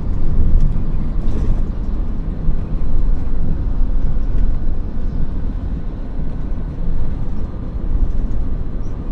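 Hino Profia truck tractor driving along a road, heard inside its cab: a loud, steady low rumble of engine and road noise.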